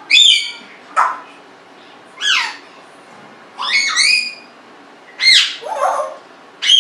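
Congo African grey parrot giving a string of loud whistles and squawks, about six calls roughly a second apart, most of them gliding downward in pitch.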